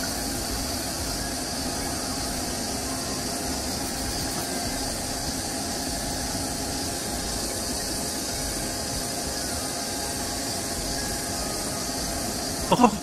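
Steady mechanical hum with an even hiss from a powered-up Doosan CNC lathe, its pumps and fans running while the machine stands ready.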